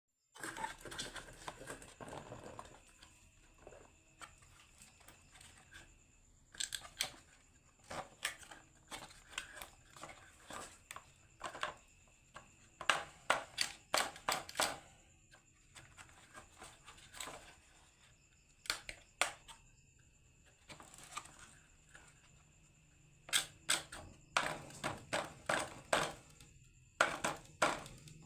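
Marbles clattering down a HABA wooden marble run: bursts of rapid sharp clicks and knocks, with quieter stretches between.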